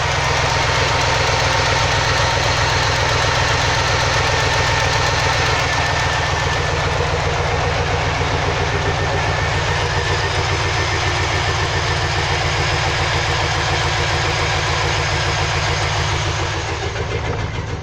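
2003 Chevy Silverado 2500's 6.0 V8 idling steadily with a rough, uneven beat from a misfire. The scanner shows P0300, a random misfire, and the owner hopes the coil packs are to blame.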